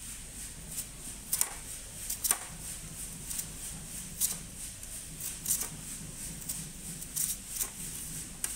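Potato slices being cut on a handheld crinkle-cut slicer: the potato is pushed over the wavy steel blade in short scraping strokes, roughly one a second at an uneven pace. A faint steady hum sits underneath.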